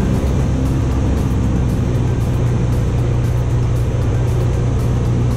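Background music with a steady beat over the steady drone of the Cessna 172's piston engine and propeller.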